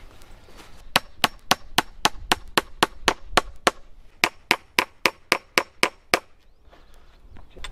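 Claw hammer tapping on top of a steel fence post, about twenty quick, even strikes at roughly four a second, with a short pause about halfway through.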